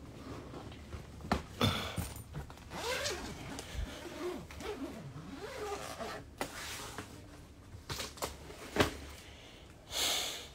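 Zipper of a fabric suitcase being pulled open in rasping runs, with a few sharp knocks as the case is handled.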